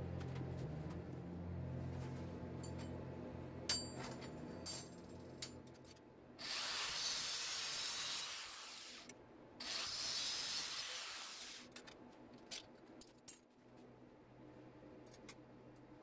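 Two bursts of a workshop tool, each about two seconds long and hissing, with scattered light clinks of metal cutlery around them.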